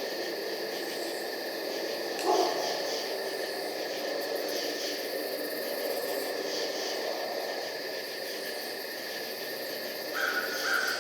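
Night ambience of crickets chirping in a steady pulsing chorus over a low hiss. A short, louder sound cuts in about two seconds in, and a brief high call sounds near the end.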